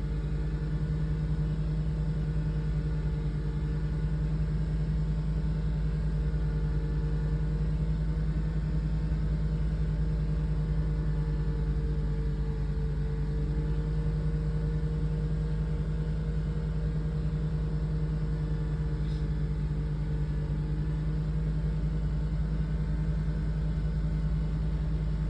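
BMW 325i E90 straight-six engine running steadily, with a ticking that the owner takes for noisy hydraulic lifters.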